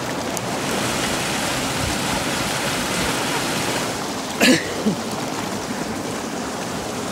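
Steady rush of flowing river water close to the microphone. There is a brief louder burst about four and a half seconds in, with a smaller one just after.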